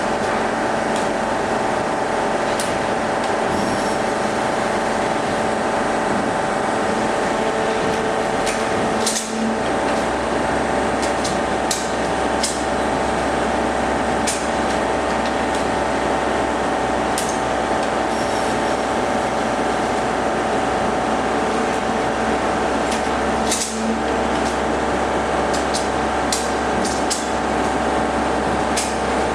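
Maren Propak 2R185 two-ram baler running: a steady hydraulic drone with several held tones, broken by scattered sharp clanks and knocks. A deeper low hum sets in about nine seconds in.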